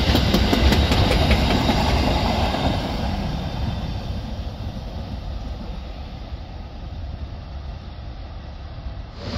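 Freight train wagons rolling past with a low rumble and wheels clacking over the rail joints, then the rumble fading away as the end of the train draws off down the line.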